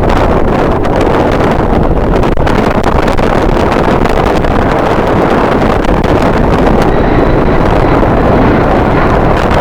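Strong wind buffeting the microphone: loud, steady noise.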